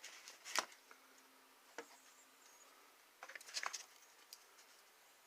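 Faint scattered clicks, with a short cluster of them a little past three seconds in.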